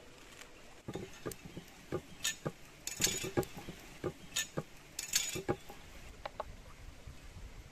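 Irregular wooden knocks and light clinks of cooking utensils on a wooden board during food preparation, a dozen or so sharp taps over a few seconds.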